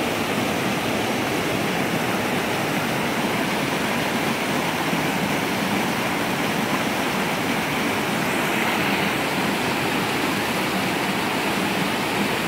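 Small waterfall spilling down a granite creek channel: steady rushing water.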